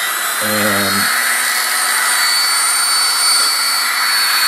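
Dremel rotary tool running free at a steady high speed, giving a high-pitched whine.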